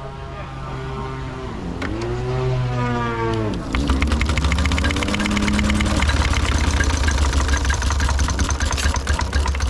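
Miniature steam traction engine set running about four seconds in: fast, even exhaust beats and clatter from the motion carry on steadily. Before it starts, pitched tones waver and glide up and down.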